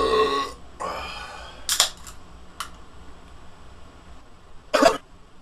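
A short voiced sound at the start, then a few sharp clicks and a single knock a little before the end: handling noises.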